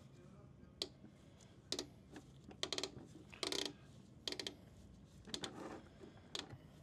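Faint, scattered clicks and short rattles of hand tools and parts being handled while coolant hoses are worked off a motorcycle.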